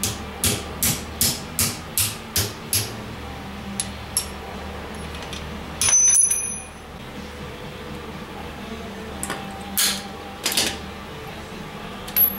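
Hammer striking a steel piece clamped in a bench vise: a quick run of about eight blows, a louder clang that rings on briefly about six seconds in, then a few more single blows near the end.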